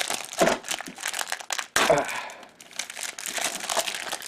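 Crinkling and tearing of the plastic wrapping as it is pulled off new VHS-C cassette tapes, a dense run of irregular crackles.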